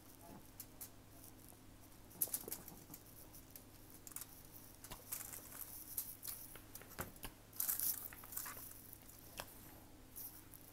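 Faint, scattered crackles and rustles of cornstarch powder being shaken out of a plastic canister onto a soft pile, with light handling of the canister.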